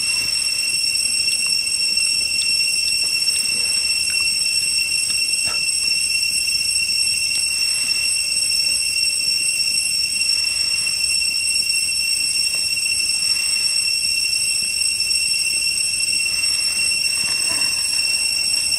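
A steady, high-pitched cicada drone. A few faint clicks and scrapes of clam shells being handled come and go under it.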